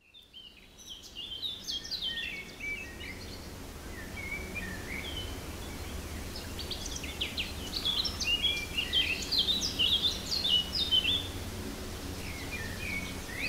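Birds chirping and singing in quick, high, short phrases, thickest from about six to eleven seconds in, over a low steady background rumble.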